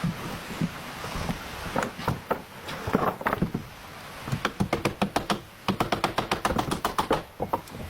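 Knocking and tapping on wood, as in building with a hammer: scattered knocks at first, then a fast run of sharp taps, about eight a second, for around three seconds in the second half.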